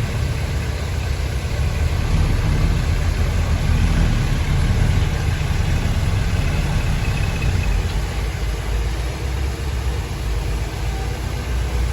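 Heavy diesel engine of earthmoving machinery running steadily, a deep low rumble with a haze of mechanical noise over it.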